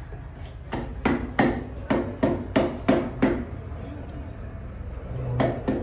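Sharp metal-on-metal knocks on a stripped Ashok Leyland diesel engine block as parts are tapped during teardown: eight in quick succession, then two more near the end.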